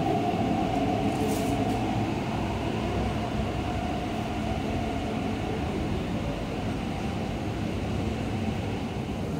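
MTR East Rail Line electric train pulling out of the station and running away down the line: a steady rumble of wheels on rail, with a held motor tone that fades over the first several seconds as the train draws away.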